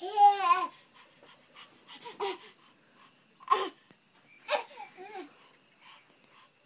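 Baby squealing loudly once, then a string of short babbling and laughing calls about a second apart.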